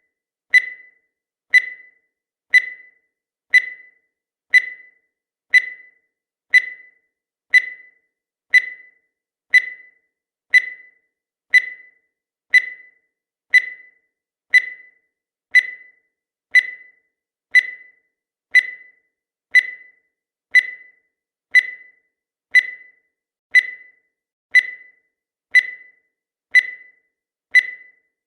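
Countdown timer sound effect: a short, high beep once a second, each one struck sharply and fading quickly.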